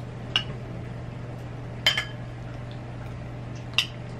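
Metal spoons clinking against bowls and dishes three times, each a short ringing tap, over a steady low hum.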